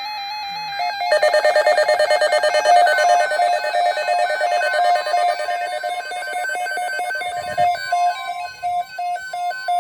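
Several NOAA weather alert radios sounding their alarms at once for a tornado watch: a dense jumble of electronic beeps and warbles starting about a second in, over a steady tone like the NOAA Weather Radio's 1050 Hz attention tone. Near the end the beeping thins to a regular beep about twice a second.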